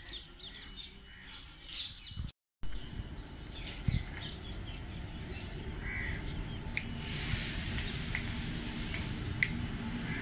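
Crows cawing among the chirps of smaller birds, broken by a brief silent gap about two seconds in; a steady hiss comes up in the second half.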